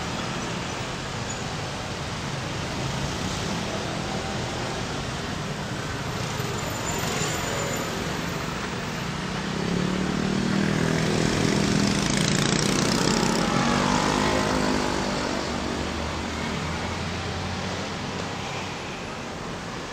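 Road traffic running steadily by on a city street. About ten seconds in, a motor vehicle's engine grows louder and passes, fading away again a few seconds later.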